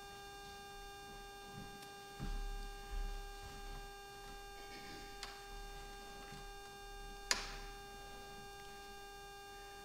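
Steady electrical hum, with soft low thumps as people move about and a sharp click about seven seconds in.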